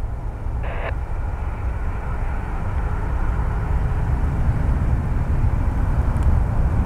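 Boeing 737 on final approach: the jet's engines a steady rumble and hiss that grows gradually louder as the airliner nears.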